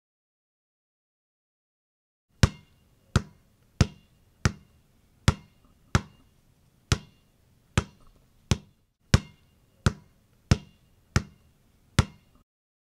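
A ball bouncing about fourteen times, roughly one and a half bounces a second, each a sharp impact with a short ring. It starts about two and a half seconds in and stops just before the end.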